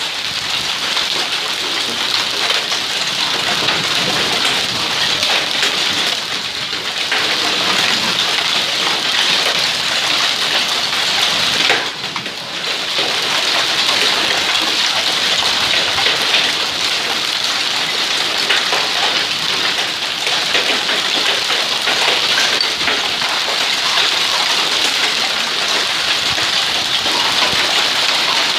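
Heavy hail mixed with rain pelting stone and brick paving and splashing into a swimming pool: a dense, steady clatter of countless small hits. It dips briefly about twelve seconds in.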